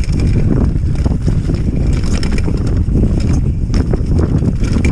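Mountain bike riding fast over a dirt singletrack: wind buffeting the microphone and a steady low rumble of tyres and suspension on the trail, with scattered clicks and rattles from the bike.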